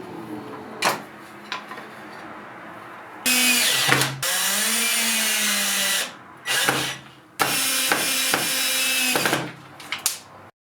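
Electric power tool motor running in three bursts: about three seconds, then half a second, then two seconds. The motor's pitch sags and recovers during the first burst, as if under load.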